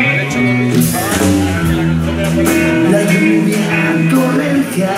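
Live rock band playing: electric guitars and a drum kit.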